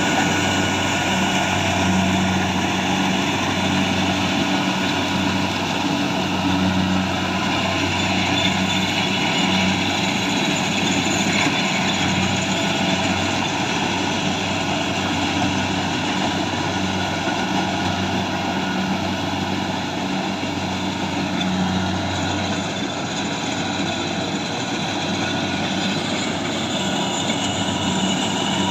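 Rice combine harvester's engine running steadily under load, a constant mechanical drone with a low pulsing hum.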